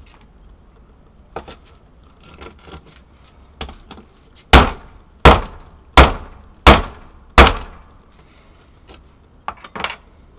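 The hammer pommel on the butt of a Gerber Bear Grylls Ultimate knife striking a stone to smash it: five hard, sharp blows in quick succession, about one every 0.7 seconds, with a few lighter knocks before and after.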